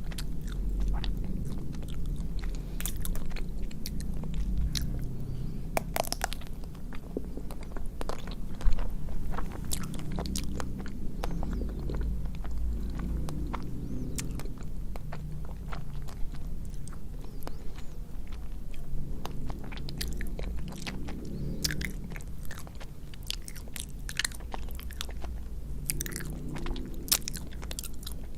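Close-miked biting and chewing of a chocolate-coated ice cream bar: the hard chocolate shell cracks in many sharp, irregular crunches over wet chewing.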